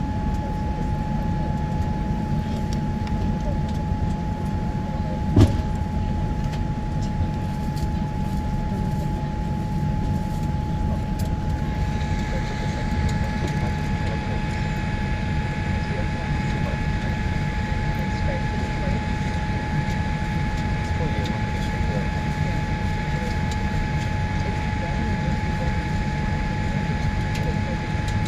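Steady rumble and rush of an airliner's engines and airflow heard inside the cabin, with a constant whine; a second, higher whine joins about twelve seconds in. A single sharp knock about five seconds in.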